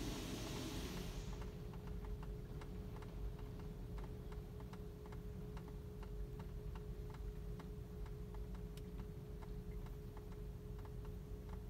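Automatic car wash heard from inside the car: a spray of water on the body stops about a second in, leaving a steady hum and fast, even ticking.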